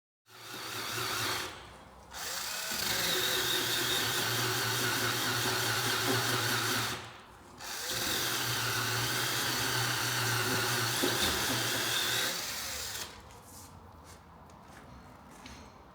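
An electric power tool's motor running in three bursts with short pauses between them, a steady hum with a hissing whir over it, then stopping about three-quarters of the way through.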